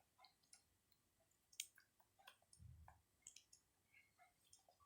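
Near silence with faint scattered clicks and soft rustling as an N95 face mask is handled and put on.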